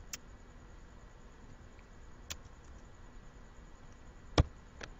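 A few isolated clicks of a computer keyboard and mouse over a low steady hiss. The loudest, a single sharp click, comes just over four seconds in.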